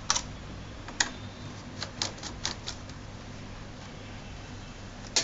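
Light plastic clicks and taps of a small screwdriver and fingers working among a laptop's keyboard keys and case: a run of clicks over the first three seconds, a pause, then a sharper click near the end, over a steady low hum.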